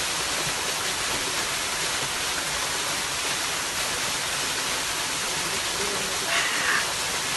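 Waterfall pouring: a steady, even rushing of falling water.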